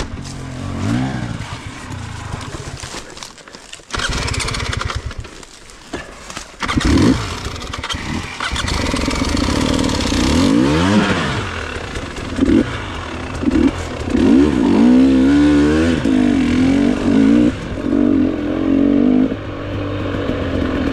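Enduro dirt bike engine revving hard in repeated bursts as it is worked along a slippery trail. The engine note drops away about three seconds in and comes back loud about a second later.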